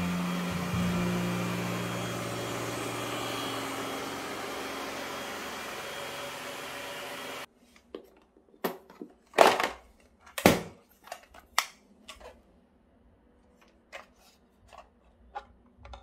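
Ecovacs Deebot T9 robot vacuum running: a steady motor-and-brush hum that slowly fades and cuts off abruptly about halfway through. Then comes a string of sharp plastic clicks and knocks as the robot's top lid is lifted and the dust bin is unlatched and pulled out, the loudest two a few seconds after the cut.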